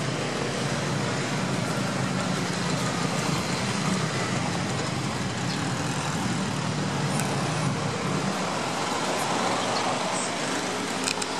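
Steady street traffic noise, with a vehicle engine running low underneath that fades about two-thirds of the way through; a few faint clicks near the end.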